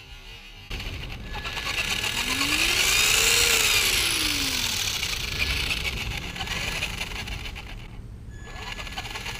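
Brushed 550 12-turn electric motor of a Traxxas Slash 2WD spinning up under throttle, its whine rising and then falling in pitch, easing off near the end and spinning up again.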